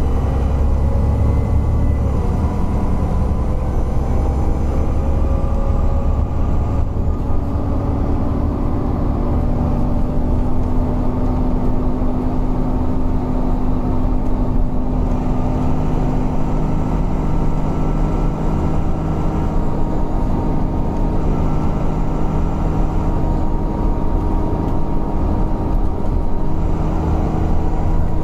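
Alexander Dennis Enviro400 double-decker bus under way: steady engine and drivetrain rumble with whining tones over it. The whines sink slightly in pitch over the first few seconds, and a lower whine comes in about seven seconds in and holds steady.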